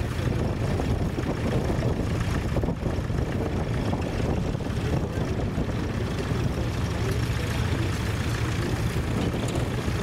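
Steady low rumble of wind buffeting the microphone, over a vintage grey Ferguson tractor engine idling while it stands with its mounted plough.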